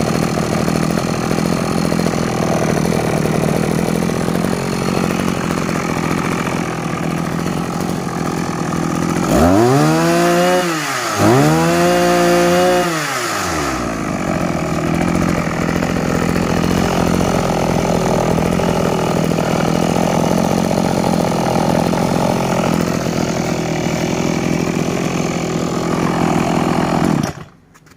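Small petrol engine of a grass cutter running at idle, revved up and back down twice about a third of the way in, then idling again before it shuts off abruptly near the end.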